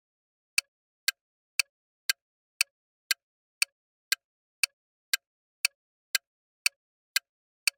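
Clock-tick sound effect counting down the answer time, sharp even ticks about two a second.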